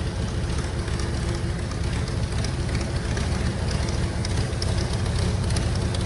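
Airboat engine and propeller running as the airboat comes slowly down the canal: a steady low rumble with a faint humming tone, growing slightly louder toward the end.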